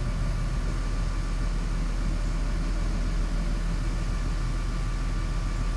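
Volvo EC210CL excavator's diesel engine running steadily at low throttle.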